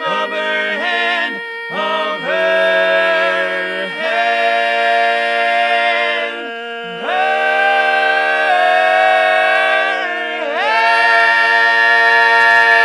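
Barbershop quartet singing a cappella in close four-part harmony: sustained chords that change every couple of seconds over a long-held note. It ends on a loud, held final chord that swells about two-thirds of the way through.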